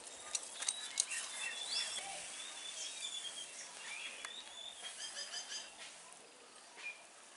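Small birds chirping, with scattered short tweets and quick rising and falling calls and a rapid run of repeated chirps midway, over a few faint clicks in the first second.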